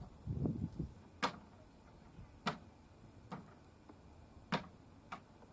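About five sharp, irregularly spaced wooden knocks and clacks as scrap boards are pulled from a pile of old timber and knocked against one another, with a few dull thumps in the first second.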